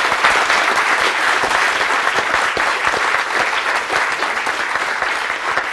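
Audience applauding: many hands clapping at once in a dense, steady patter that eases off slightly toward the end.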